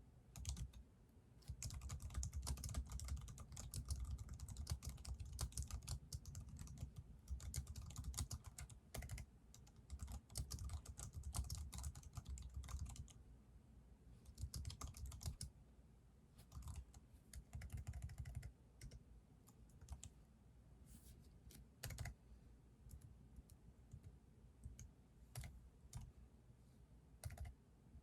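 Typing on a computer keyboard: quick, steady runs of keystrokes for about the first half, then slower, scattered bursts of keys with short pauses between them.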